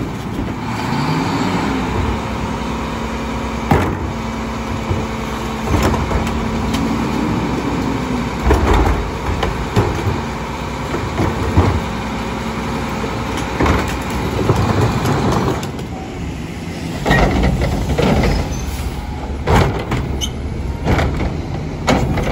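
Rear-loading garbage truck's engine and hydraulics running while its cart tipper lifts and dumps trash carts: a whine rises and falls twice, and carts bang against the lifter several times. In the last few seconds it changes to an automated side-loading garbage truck's arm dumping a cart, with more clanks.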